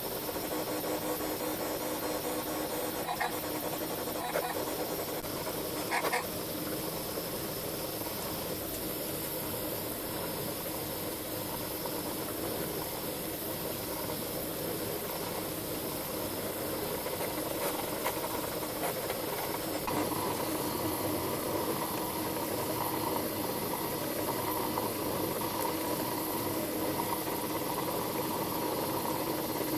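Stepper motors of a CNC router set up for 3D printing, running steadily with a whine of several steady tones over a hiss as the machine moves through a print. A few light clicks come in the first seconds, and the pitch of the whine shifts about twenty seconds in as the motion changes.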